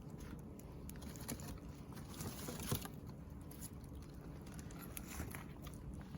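Wood fire crackling, with scattered small pops and snaps over a low steady rumble; the loudest pop comes a little before the middle.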